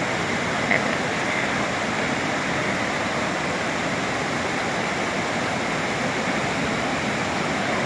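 Floodwater of a swollen river rushing past in a steady, unbroken wash of noise.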